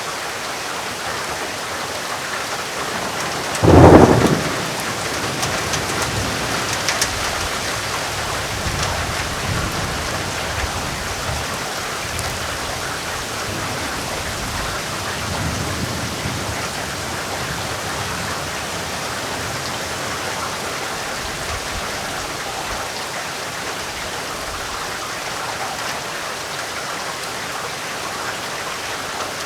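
Steady heavy rain. About four seconds in comes a sharp, close thunderclap, the loudest sound, followed by low thunder rumbling on and off for over ten seconds before it fades back under the rain.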